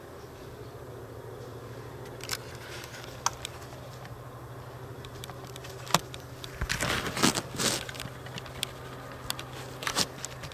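Handling noise: a few sharp clicks, then a burst of rustling as the camera is swung round, over a steady low hum.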